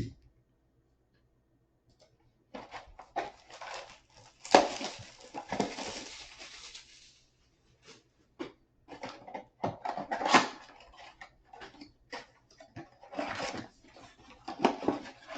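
A sealed retail box of trading cards being opened by hand: cardboard and plastic wrapping tearing and crinkling, with a longer rip about five seconds in, then packs rustling and knocking as they are handled.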